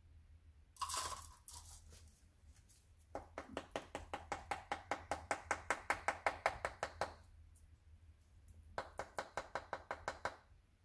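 Rapid light tapping against a container of loose firework composition to shake the last of it out, in two runs of about five taps a second, with a short rustle about a second in.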